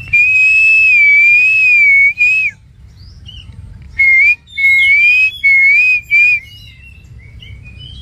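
Green pigeon (punai) whistling: one long wavering whistle of about two and a half seconds, then after a pause a run of four shorter whistles. Faint chirps from other birds come between them.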